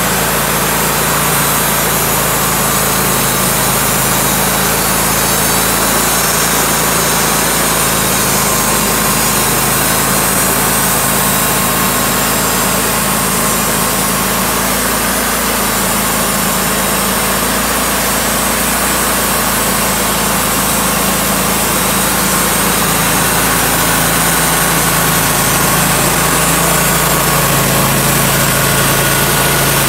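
Wood-Mizer LT35 portable band sawmill running steadily, its engine and band blade sawing through a walnut log.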